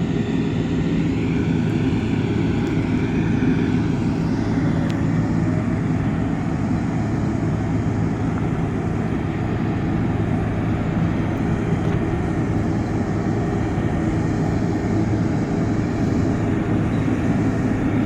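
Diesel engine of a heavy construction machine running steadily, a continuous loud drone without pauses.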